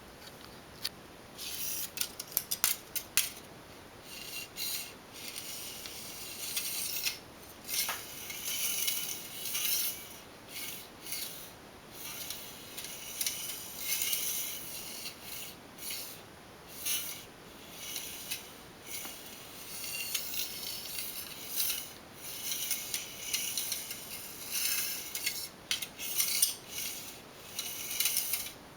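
Aluminum foil toy crinkling and rustling in short irregular bursts as a cat plays with it.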